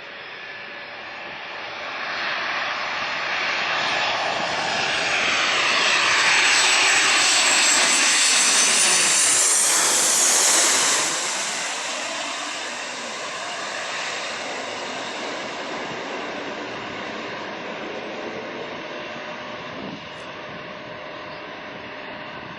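Jet airliner passing close by. The engine noise with a high whine builds over several seconds to a loud peak, drops off sharply about halfway through, then fades slowly as the aircraft moves away, with a sweeping shift in tone as it passes.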